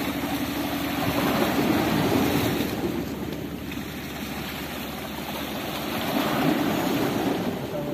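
Small sea waves washing and foaming over the rocks at the water's edge, swelling and easing as each wave comes in.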